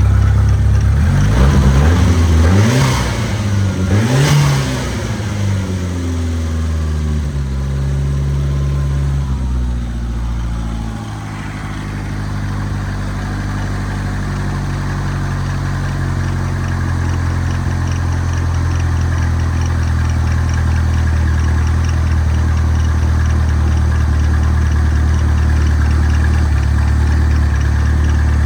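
Freshly rebuilt 2.3-litre turbo engine blipped twice, rising and falling in pitch, then settling back to a steady idle.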